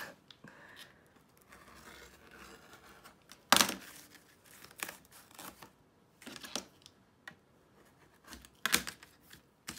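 Rotary cutter blade rolling through glitter vinyl and stabilizer along a metal hem ruler, a faint scratchy slicing, then a sharp clack about three and a half seconds in as the cutter is set down on the cutting mat, followed by a few lighter taps.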